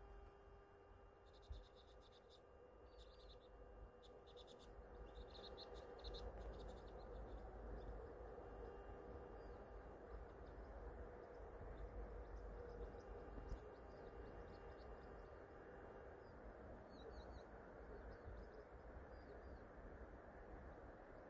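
Near silence outdoors, with faint small-bird chirps in several short runs during the first six seconds and more faintly again later on.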